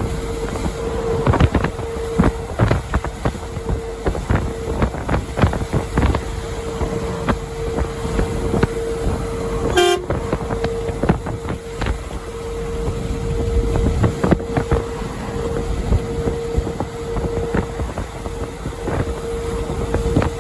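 Truck air horn held on one steady note that swells and fades at times, over road rumble and wind buffeting from a moving vehicle.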